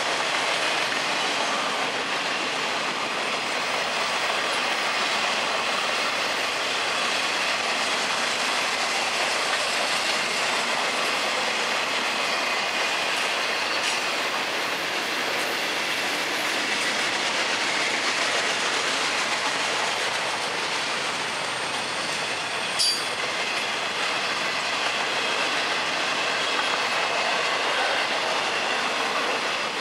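Freight train's double-stack container cars and flatcars rolling past: a steady rush of steel wheels on rail, with a faint high tone at times and one sharp click about three-quarters of the way through.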